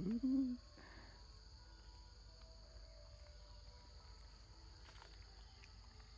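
Steady, high-pitched drone of insects in the forest, holding at two even pitches without a break. A short wavering voice sounds at the very start and stops about half a second in.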